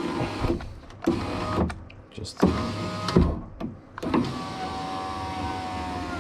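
Saab 9-3 rear door power-window motor whining as it drives the glass in several short runs, with a clunk each time it stops. The motor is finding its end stop after the glass and seal were refitted.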